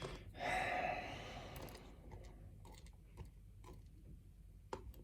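Faint handling of small metal lock parts: a short scrape near the start, then scattered light clicks and taps.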